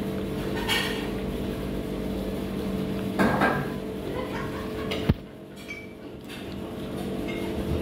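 Steady background hum with a few short clinks and knocks of tableware, the sharpest about five seconds in.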